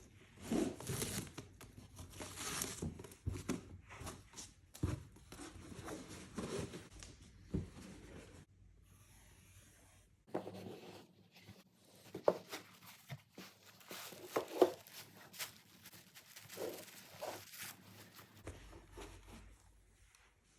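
Paper packaging being unwrapped by hand: irregular rustling, crinkling and tearing, with scattered sharp taps and knocks as the box and its contents are handled, and a short lull about halfway through.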